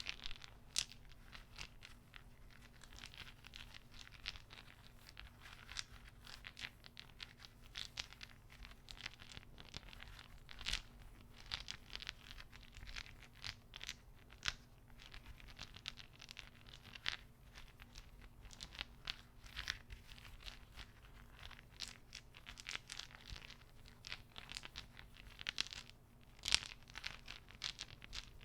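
Wooden beads clacking together as they are handled: an irregular run of light clicks and clacks.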